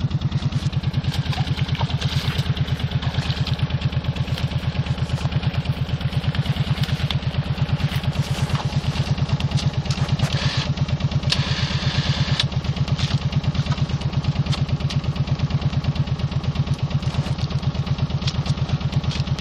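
Kawasaki Brute Force ATV engine idling with a steady, even pulse.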